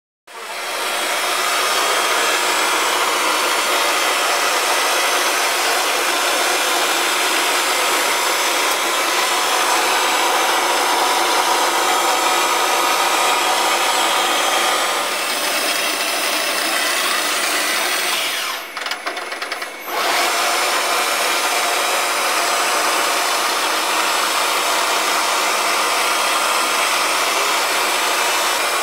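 Hermle UWF 1200 CNC milling machine running, a loud steady mechanical whir with many tones that starts suddenly and dips briefly about two-thirds of the way through.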